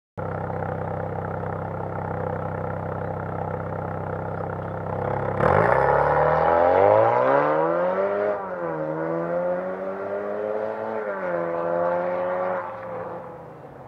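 Lexus IS 200t's 2.0-litre turbocharged four-cylinder idling steadily through an aftermarket downpipe and valved cat-back exhaust with the valves open in Sport mode. About five seconds in, the car pulls away hard. The pitch climbs, drops at an upshift about two seconds later, climbs again through a second shift, and the sound fades as the car drives off.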